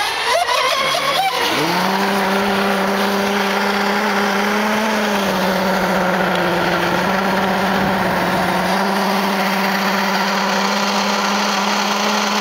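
Small racing-boat engine running flat out as a steady, high-pitched whine. About a second in, the pitch dips briefly and then climbs back; after that it holds with only small wavers.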